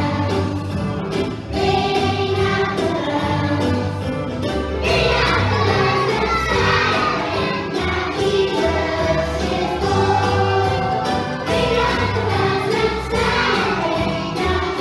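Young children singing a Christmas song together as a choir, over a backing track with a steady beat.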